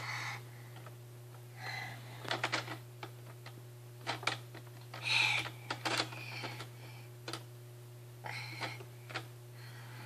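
Irregular plastic clicks and taps from a baby working the buttons and knobs on the dashboard of a ride-on toy, coming in small clusters a second or two apart.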